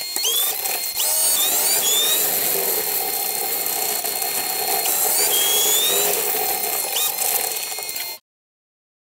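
Train running noise heard from the driver's cab, a steady mechanical sound with repeated quick rising whines over a constant high tone, cutting off abruptly about eight seconds in.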